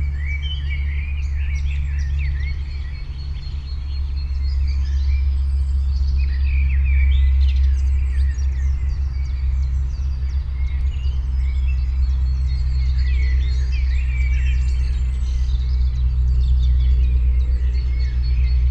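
Small songbirds chirping and twittering in repeated bursts of quick notes, over a steady low rumble.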